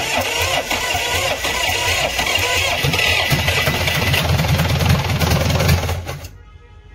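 Diesel engine on a stand with its valve cover off, just started and running, smoking, then cut off a little after six seconds in.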